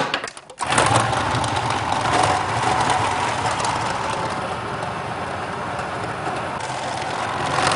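Electric food processor motor running steadily as its blade whizzes up a thick raw salmon and breadcrumb fish cake mixture. It starts about half a second in and stops at the very end.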